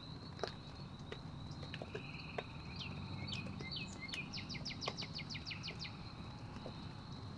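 A songbird singing: a few separate down-slurred whistled notes that speed up into a rapid trill of about a dozen notes, over a steady high-pitched insect-like tone, low rumble and faint scattered clicks of field ambience.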